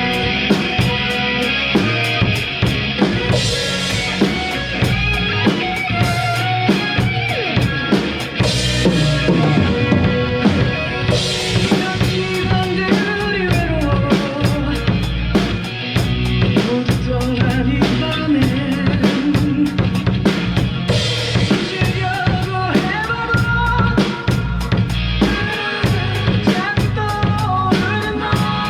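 Drum kit played in steady time along with a recorded song: kick, snare and rimshot hits over the band track, with cymbal washes coming in for stretches.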